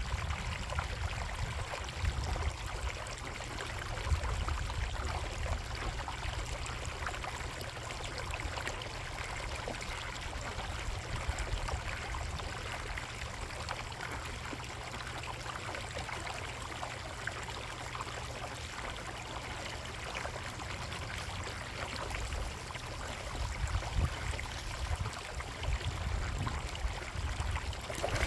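Koi pond water running steadily with a continuous trickling and splashing, over a low rumble that swells now and then.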